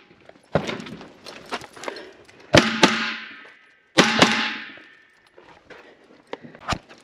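Gunshots during a multigun stage: a quick string of shots about a second in, then two louder shots about a second and a half apart, each followed by a long metallic ring from a hit steel target. Two fainter sharp cracks come near the end.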